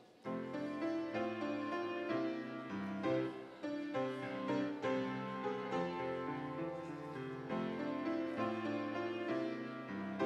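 Solo grand piano playing a piece of held chords and melody, picking up again after a brief break right at the start.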